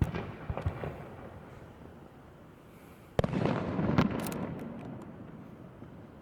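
Fireworks shells bursting overhead. A sharp bang at the start is followed by crackling pops. A second bang about three seconds in rumbles and slowly fades, with another crack about a second later.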